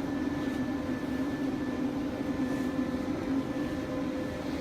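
Steady, even machine hum with a few faint constant tones and no distinct strokes or clicks.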